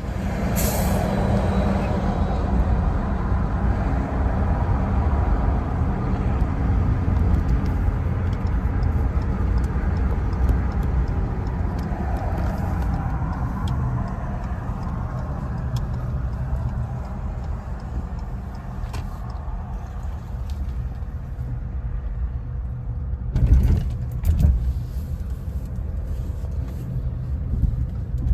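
Ford Maverick pickup driving on the road: a steady low rumble of engine and road noise, with a brief louder bump near the end.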